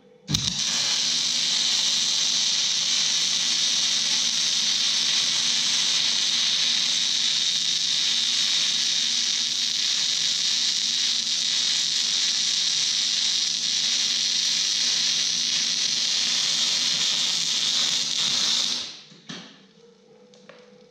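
Electric arc welding a weld bead: a steady, loud crackling hiss that starts just after the beginning, holds evenly for about eighteen seconds and stops near the end. A faint low hum runs underneath.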